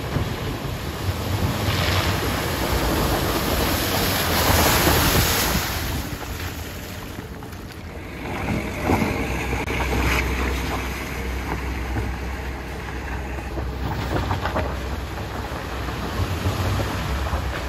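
Tata Nexon SUV driving through deep muddy water, its wheels throwing up splashing, rushing water over a low engine hum, with wind on the microphone. The splashing is loudest a few seconds in and surges again about halfway through.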